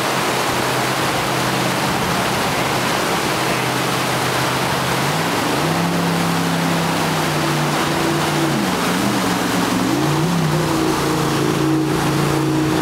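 White-water rapids rushing steadily, with a 14-foot jet-drive sprint boat's engine running over them. About five seconds in the engine's pitch rises, then dips and climbs again as the boat powers up through the rapids.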